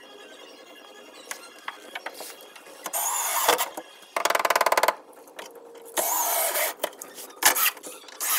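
Cordless drill driving deck screws into wood in several short runs of the motor, each about half a second to a second long, some with a rising whine as the screw is driven. One run has a rapid rattle.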